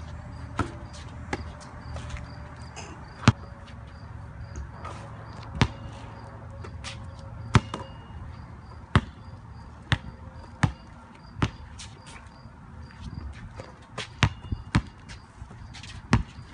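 A basketball bouncing on a concrete driveway: single sharp bounces, irregularly spaced about one to two seconds apart.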